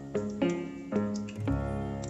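Background instrumental music, pitched notes struck about twice a second over a sustained bass.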